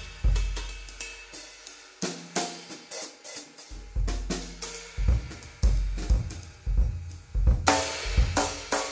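Drum-led music: a drum kit playing bass drum, snare and cymbals in a steady groove over long low bass notes, growing busier in the second half.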